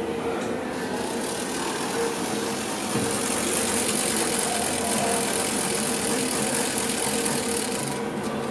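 Steady machinery hum with a continuous hiss; the hiss grows stronger about a second in and drops away near the end.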